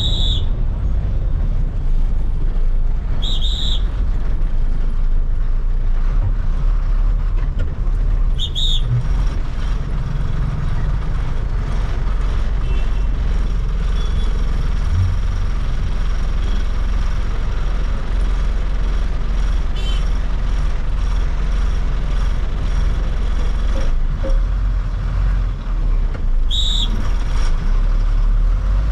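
Diesel bus engine running with a steady low rumble, heard from inside the driver's cab as the bus moves slowly. Four brief high-pitched bursts cut through: one at the start, two more in the first nine seconds, and one near the end.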